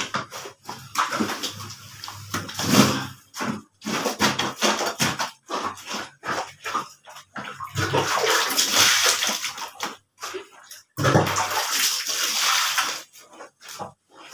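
Wet, soapy fleece blanket being scrubbed and sloshed by hand on a concrete wash floor. It comes in irregular bursts of rubbing and water noise, with two longer stretches from about halfway through and again near the end.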